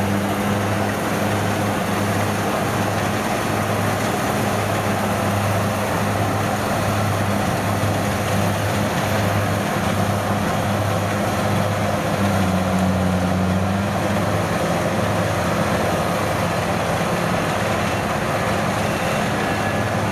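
Kubota DC60 and DC1115 rice combine harvesters working through standing rice: a steady diesel engine drone with the hum of the cutting and threshing machinery.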